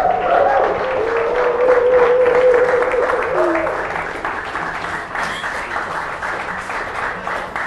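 Audience applauding, with a long wavering note carried over the clapping for the first three seconds or so; the applause eases off toward the end.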